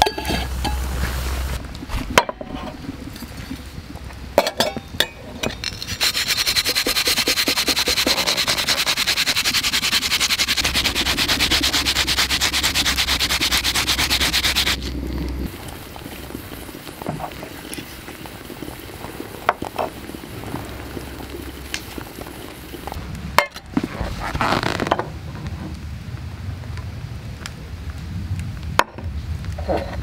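Camp cooking over a wood fire: a steady hiss with rapid fine crackling for about nine seconds in the middle, with scattered clinks and knocks of metal cookware before and after it.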